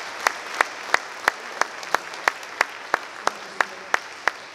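Audience applause thinned out to one person clapping steadily, about three claps a second, over faint fading crowd noise.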